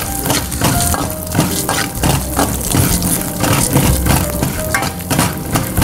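A metal spoon stirring and scraping cumin seeds and chana dal frying in hot oil in a steel kadai, in quick repeated strokes over a steady sizzle.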